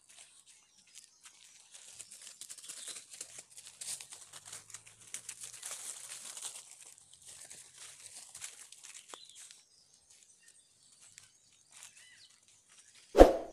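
Dry leaf litter and twigs crackling and rustling underfoot as someone walks through undergrowth, as dense fine crackles that thin out in the last few seconds. A loud short sound stands out near the end.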